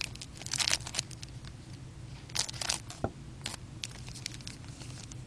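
Crinkling and tearing of a trading-card pack wrapper as it is opened and the cards are handled, in a few short bursts with light clicks between them.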